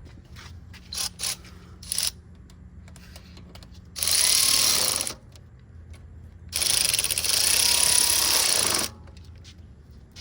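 Tool noise during reassembly of a small engine: a few sharp clicks, then two loud hissing bursts, one of about a second and one of about two seconds.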